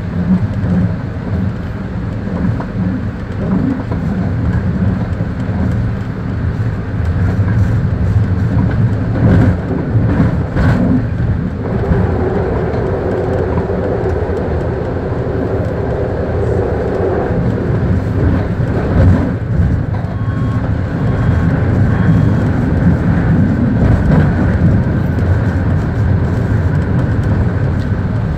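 BART train running at speed, heard from the cab: a steady rumble of wheels on rail. A higher whine rises over it from about twelve to seventeen seconds in, and three short beeps come about twenty seconds in.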